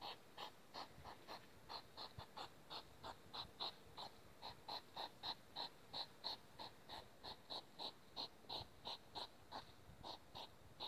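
Courting hedgehogs snorting and huffing in a rhythmic series of short puffs, about three a second, the snorting a male makes while circling a female.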